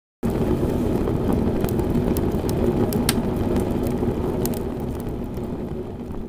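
Fire sound effect: a steady burning roar with scattered sharp crackles, starting abruptly and fading out near the end.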